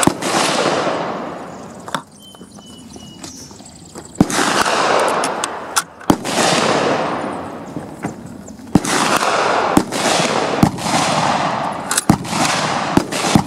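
A string of rifle shots on an open firing range, about eight over the stretch, each a sharp crack followed by a long echoing tail. Light metallic clicks come between them as a Springfield 1903 bolt-action rifle's bolt is worked and a spent case is ejected.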